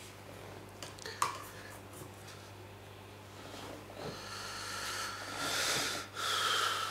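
A person breathing audibly through the nose: a long breath building up, a brief pause, then a short breath with a faint whistle. A small sharp click comes about a second in.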